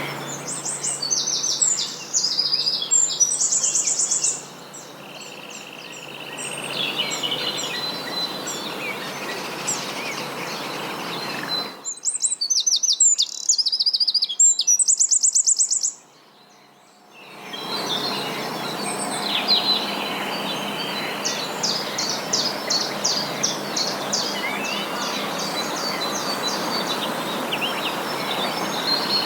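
Several wild songbirds singing in repeated phrases of fast trills and chirps over a steady outdoor background rush; the background drops away for a few seconds about halfway through.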